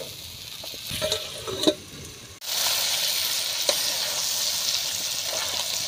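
Chicken and potato curry sizzling in a steel kadai while a metal spatula stirs it, with a few clinks and scrapes against the pan. About two and a half seconds in, the sizzle suddenly becomes louder and steady.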